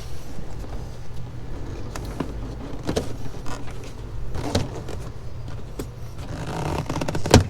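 Clicks and knocks of an intake part being handled and fitted back into place, with a sharp snap near the end, over a steady low hum.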